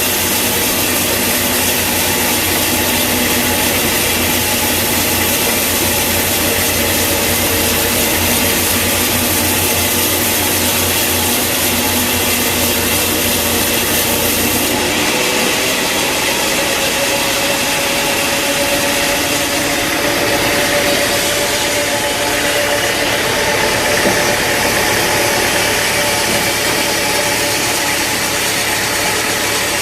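Sawmill machinery running steadily, a loud engine-driven hum with a whine over it; the sound changes abruptly about halfway through.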